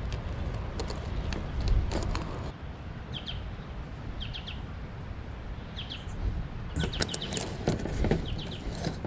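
Hands mixing and kneading wet bread dough in a stainless steel bowl, making scattered soft clicks and knocks. A small bird chirps in quick runs of two or three high notes, several times from about three seconds in.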